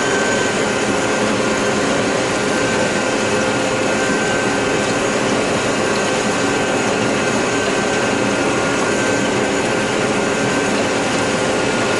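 John Deere 9600 combine running steadily while harvesting corn, heard from inside the cab: an even machine drone with a constant whine.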